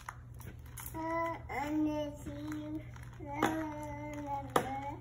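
A young child singing a few long held notes in a row. Two sharp knocks come in the second half.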